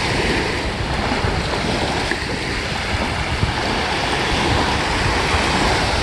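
Small Chesapeake Bay waves breaking and washing up a sandy beach in a steady wash of surf, with wind buffeting the microphone as a low rumble.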